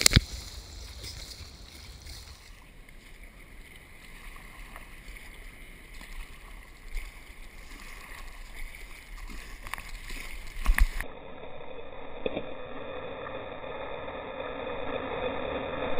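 Sea water sloshing and gurgling around a sea kayak in surf. There is a brief sharp hit about eleven seconds in, then the rush of water growing steadily louder toward the end as a breaking wave comes in.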